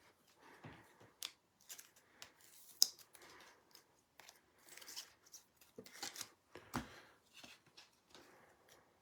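Trading cards and their packaging being handled: scattered soft clicks, slides and rustles, the sharpest click about three seconds in.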